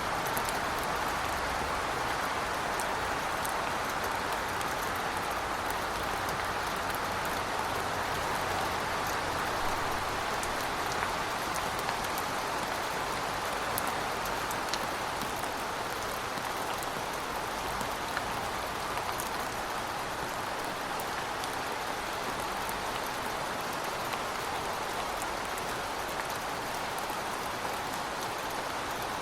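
Steady heavy rain falling on hard surfaces, a continuous even hiss with fine scattered drop ticks.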